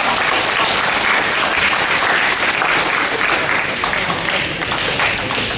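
Spectators clapping in applause after a point in a table tennis match; the clapping is dense and dies down near the end.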